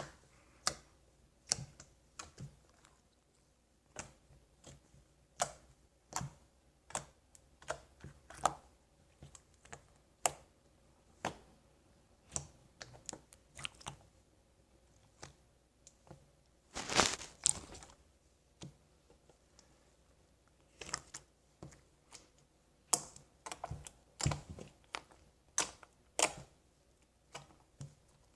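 Homemade glue slime squeezed and stretched by hand, giving off scattered sharp clicks and pops at an uneven pace, with a louder, longer stretch of popping about seventeen seconds in.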